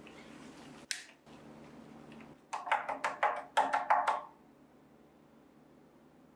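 Dried clay scraps scooped and poured from a small plastic container into a plastic bin. There is a brief scrape about a second in, then about two seconds of dry crackling clatter as the pieces fall.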